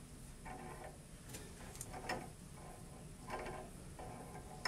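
Faint small metallic clicks and light scraping as a gold-plated sample holder is turned onto its threads inside a flow cryostat's bore. The clicks are separate ticks, roughly one a second.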